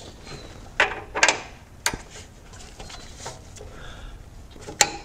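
A few sharp metallic clicks from a click-type torque wrench tightening an oil drain plug, the last one near the end as the wrench breaks over at its set 44 ft-lb.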